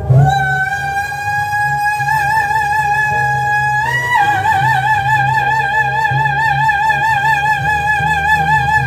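A man sings one long, very high shouted note over a rock backing track. About four seconds in, the note jumps briefly higher, then settles back with a wide vibrato.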